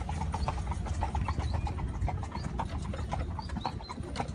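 A carriage horse's hooves clip-clopping in a quick, uneven run of knocks over a steady low rumble from the carriage.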